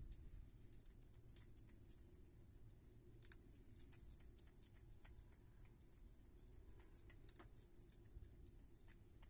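Virginia opossum chewing and smacking on wet cat food and sour cream: a faint, irregular run of small wet clicks over low background noise.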